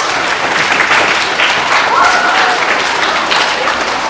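Audience applauding with steady clapping, with a short call from the crowd about two seconds in.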